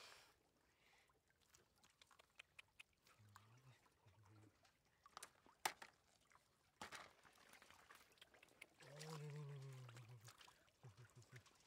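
Faint handling sounds at a shallow stream: clicks and knocks of a woven bamboo basket and light splashing water as a catfish is moved, with the sharpest knock a little past halfway. A short low hum is heard twice, once about three seconds in and again near the end.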